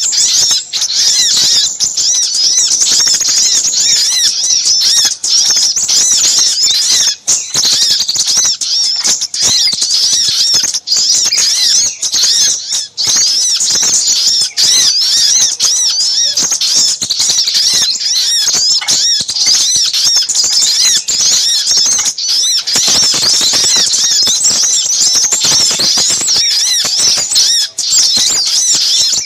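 Bird-lure recording of small birds calling busily: little spiderhunter ('sogok ontong') calls mixed with crimson sunbird ('sepahraja') calls. They make an unbroken, dense chatter of high, thin, quickly repeated chirps.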